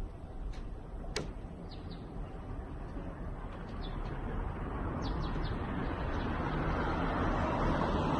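Small birds chirping outdoors: a handful of short, high, falling chirps scattered through the first five or so seconds. Under them a steady rush of outdoor noise that grows louder over the second half.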